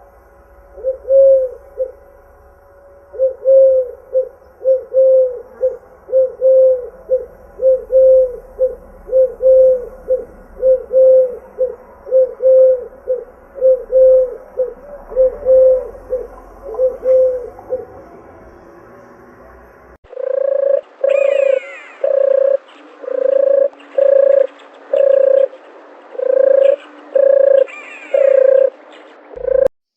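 Dove cooing: a long series of short coos, each rising and falling, repeated in quick succession. About two-thirds of the way through it switches abruptly to another recording of steadier, evenly spaced coos about one a second, with faint chirps from other birds.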